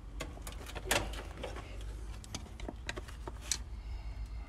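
Light clicks and small knocks of wires and terminal hardware being handled inside an AC condenser's electrical compartment, one louder click about a second in, over a low steady rumble.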